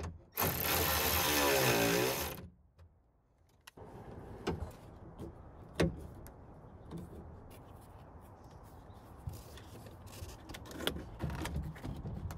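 A power ratchet runs for about two seconds on a nut inside a car door, its motor pitch wavering, then stops abruptly. After a moment of dead silence come faint clicks and taps of hand tools on the door's plastic clips and panel.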